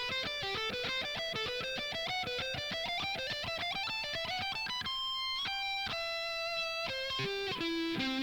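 Guitar playing a fast ascending C major scale run in sextuplets, with rapid evenly picked notes climbing steadily in pitch, then a few longer held notes stepping down over the last three seconds.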